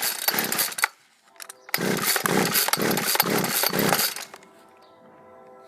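Poulan two-stroke chainsaw firing in short bursts as it runs the last fuel out of its carburetor. It cuts out about a second in, catches again for about two seconds with an uneven, pulsing run, and dies again.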